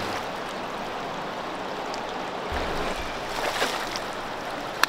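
River current rushing steadily around a wader's legs, with small splashes as a steelhead is let go from the hands into the water. A single sharp click near the end.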